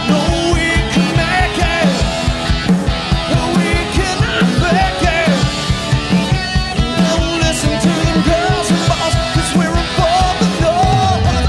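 Live rock band playing loud: a man singing lead over electric guitars and a steady, fast drum beat.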